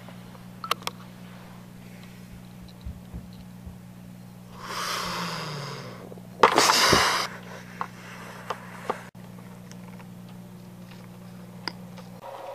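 A steady low electrical hum, with two short bursts of rushing, hissing noise about five and six and a half seconds in, the second louder.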